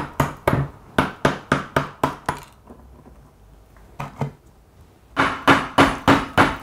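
A hard baked salt crust on a whole fish being struck and cracked open with a metal spoon. Sharp knocks come about four a second for two seconds, then two more after a pause, then another quick run near the end.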